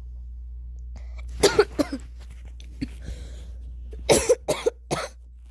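A person coughing in two short fits, a few harsh coughs each, the second fit about two and a half seconds after the first.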